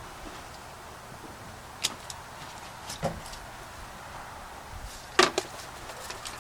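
A few sharp clicks and knocks of hand work on a car's stripped floor and transmission tunnel, the loudest a double knock a little after five seconds in, over a steady hiss.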